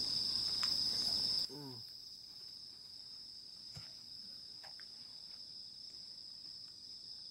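Crickets trilling in a steady, high, unbroken chorus. About a second and a half in, the whole sound drops abruptly to a quieter level, the trill carrying on underneath.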